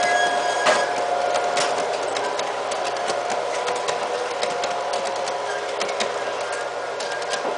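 MTH G-scale model train running on its track as the passenger cars roll past: a steady mechanical hum with many irregular wheel clicks over the rail, slowly fading as the train moves away.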